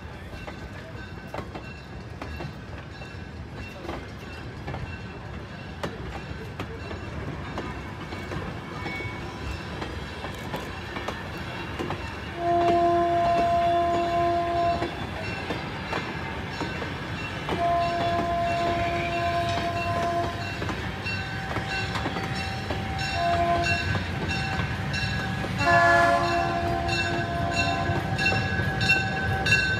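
Diesel locomotive approaching, its rumble growing louder, and sounding its horn about halfway through in two long blasts, a short one and a long one: the grade-crossing signal. A steady rhythmic ringing sets in over the last few seconds.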